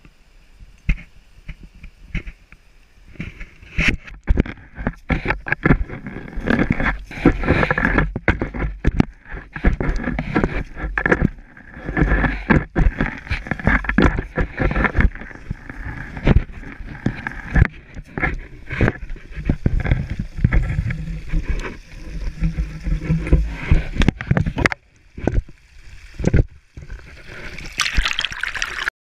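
Irregular crunching and sliding footsteps through wet, slushy spring snow, with knocks and rubbing against the camera. Near the end, meltwater trickling close by.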